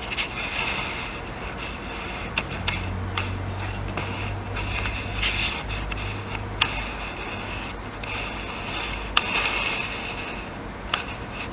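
Small metal engine parts being handled: scattered clicks, taps and scraping as a Honda Dio's piston ring is fitted into the two-stroke cylinder to check its end gap.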